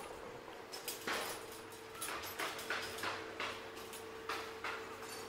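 Footsteps on pavement, about two or three a second, over a steady hum from construction machinery.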